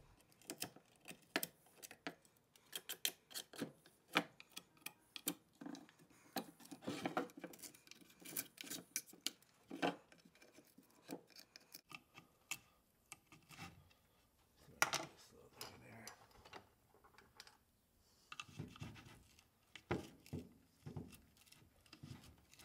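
Knife blade scraping dried Gorilla Glue out of the groove and joints of a wooden drawer part: many short, irregular scrapes with a few brief pauses. The old glue has to come off so the joints will fit back together flush.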